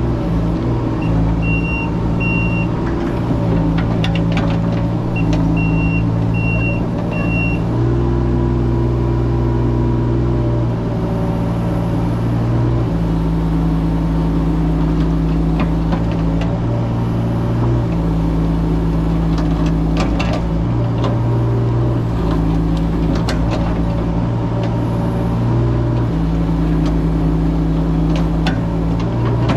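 Mini excavator's diesel engine running steadily, its note shifting every few seconds as the hydraulics take up and drop load while grading. Two runs of short high beeps come in the first several seconds, typical of a travel alarm, and there are a few knocks of the bucket or tracks.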